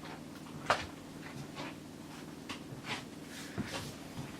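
Light kitchen handling noises as wraps are made: scattered clicks, taps and rustles, with one sharper click about three-quarters of a second in, over a low steady hum.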